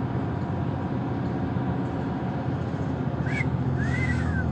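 Vehicle engine heard from inside the cab while driving, a steady low drone with road noise. Near the end come two short high chirps.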